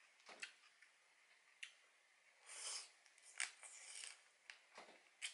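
Faint eating sounds: a few sharp clicks of metal chopsticks against crab shell and the dish, and soft wet slurps midway as meat is sucked out of a piece of soy-sauce-marinated stone crab.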